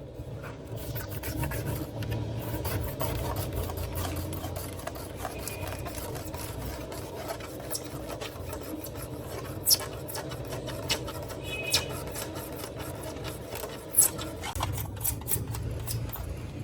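A small handheld power tool running steadily while working plastic, with a rasping, scraping sound and scattered sharp clicks, three of them louder, about ten, twelve and fourteen seconds in.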